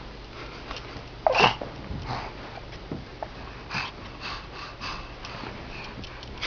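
Short breathy huffs and sniffs from a small child, in a few separate puffs, the loudest about a second in with a falling pitch.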